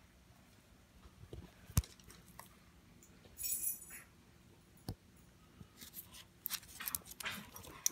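Small dog's collar tags jingling briefly and claws clicking on a hardwood floor, with two sharp knocks a few seconds apart.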